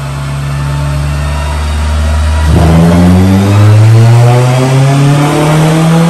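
Honda K20 four-cylinder engine in a Civic on a chassis dyno, running with its revs creeping up slowly. About two and a half seconds in, the sound changes abruptly and gets louder, and the revs climb steadily as in a dyno pull.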